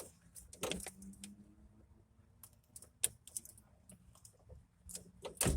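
Scattered light clicks and clatters of hand tools and metal parts being handled inside a pickup truck's door while the window regulator motor is taken out, with a sharper knock about three seconds in and a few more near the end.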